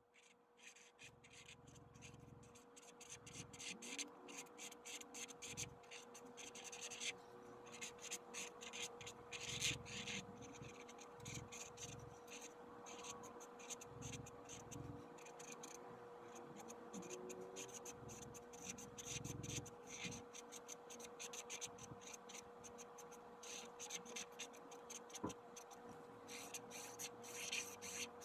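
Black permanent marker drawing on canvas: many short, quick scratchy strokes as the outlines are inked in, over a faint steady hum.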